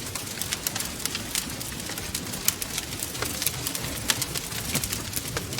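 Wood fire crackling in a fireplace: irregular sharp pops and snaps, several a second, over a steady low rumble of burning.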